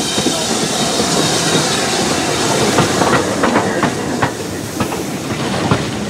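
BR Standard Class 7MT two-cylinder Pacific steam locomotive 70000 Britannia passing close at low speed, steam hissing. From about halfway, wheels clicking and knocking over rail joints as the locomotive and the first coach go by.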